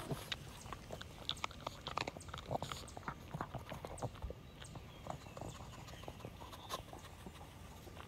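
A pug sniffing and nosing through grass right at the microphone: an irregular run of short clicks, sniffs and grass rustles.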